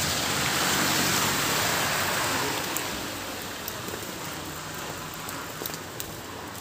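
Steady rushing hiss of wet snow falling, loudest for the first couple of seconds and then easing, with a low steady hum underneath.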